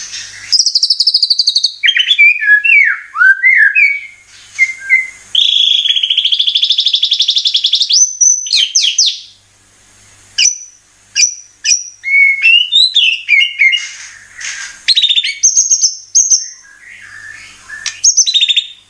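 White-rumped shama (murai batu) singing loud, varied phrases of clear whistles, sweeping notes and rapid trills, one after another with short pauses, including a long fast trill about six seconds in.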